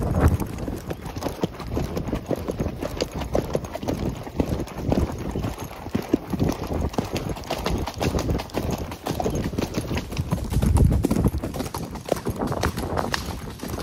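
Horses' hooves clip-clopping as they are ridden along the trail, a continuous run of hoofbeats from more than one horse.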